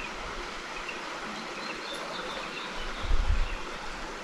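Creek water running steadily over rocks, with a few faint high bird chirps. About three seconds in, a low rumbling starts underneath.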